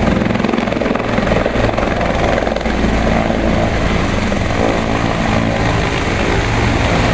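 Ambulance helicopter lifting off and climbing away: its main rotor and turbine engines run loud and steady.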